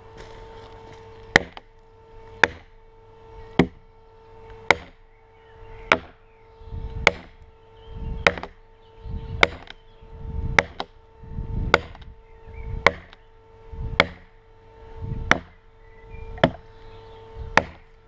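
An axe striking wood in a steady rhythm, about one blow a second, fifteen blows in all. A steady hum runs underneath.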